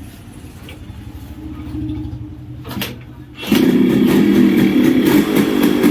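Yamaha RX 135's single-cylinder two-stroke engine running at idle after being started. About three and a half seconds in, loud guitar music comes in over it.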